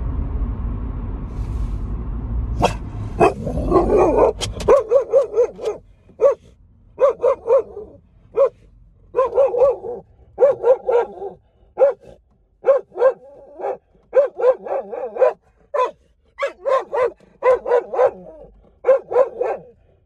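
Carolina dog barking in quick runs of several short barks with brief gaps, inside a car. A low steady car rumble at the start stops abruptly a few seconds in.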